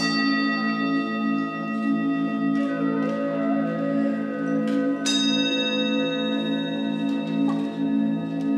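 Brass singing bowls played with wooden sticks, giving a steady low hum that pulses evenly, like a bowl being rubbed around its rim. Bowls are struck at the start and again about five seconds in, each strike ringing on with bright high overtones.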